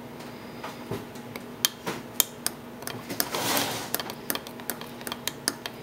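A metal spoon stirring powder into hot liquid in a Pyrex glass measuring cup, clinking irregularly against the glass, with a short hiss about halfway through.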